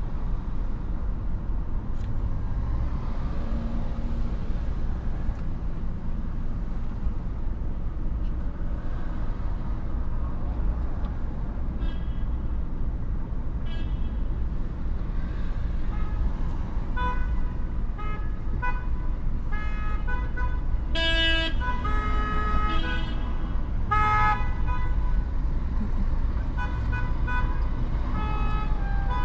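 Steady road and traffic rumble from driving through city streets, with car horns honking in short repeated beeps. The horns start about twelve seconds in, grow more frequent through the second half, and are loudest a little past the middle.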